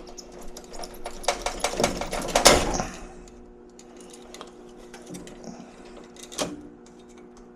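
Small plastic-and-metal clicks and rattles of wire spade connectors being handled, pulled off and pushed onto furnace control board terminals, thickest in the first three seconds with one louder click near the end. A steady low hum sits underneath.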